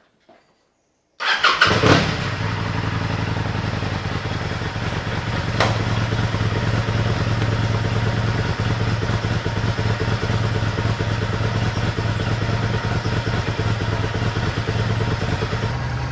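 1995 Kawasaki Vulcan 800's liquid-cooled V-twin engine starting on the electric starter, catching at once with a brief louder burst, then idling steadily. A single sharp knock comes about four seconds after it catches, and the engine runs a little louder after it.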